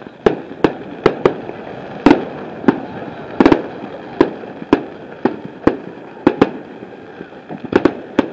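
Fireworks going off in quick, irregular succession: about seventeen sharp bangs, roughly two a second, over a steady wash of noise between the reports.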